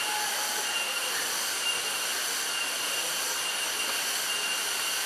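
Steady rush of a high waterfall's falling water: an even, unbroken hiss.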